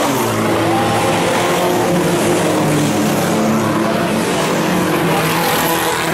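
Several banger-racing cars' engines revving hard as the pack races past close by, engine notes rising and falling over a dense wash of tyre and track noise.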